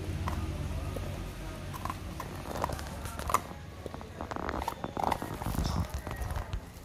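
A dog licking and chewing a chunk of potato, giving irregular wet mouth smacks and clicks, busiest in the second half.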